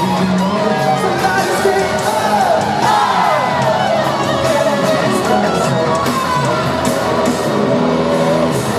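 Live concert music played loud through an arena's sound system, with a voice singing over it and the crowd shouting and whooping along, echoing through the large hall.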